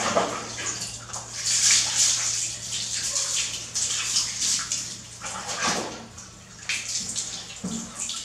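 A scoop of water splashing in a plastic bin at the start, then water poured from a plastic bowl over a small monkey, splashing off its fur onto a tiled floor in several surges.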